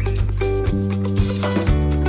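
Background music with guitar, bass and a steady percussive beat.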